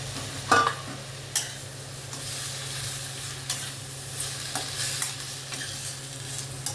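Chopped tomatoes frying with onion and garlic in butter in a pan, sizzling steadily as a spoon stirs them. The spoon knocks against the pan several times, loudest about half a second in.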